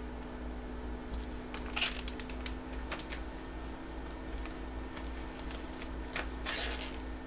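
Light handling sounds at a desk: scattered small clicks and two short rustles, about two seconds in and near the end, over a steady low hum.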